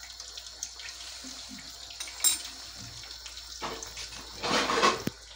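Pan of İzmir köfte in tomato sauce simmering on a gas stove, a steady faint bubbling hiss. A sharp click comes a little over two seconds in, and a louder rush of noise about half a second long near the end.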